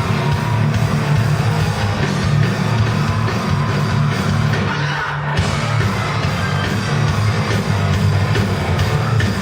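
A rock band playing loud, heavy music live, with distorted electric guitar over bass and drums, broken by a short gap about five seconds in before the band comes back in.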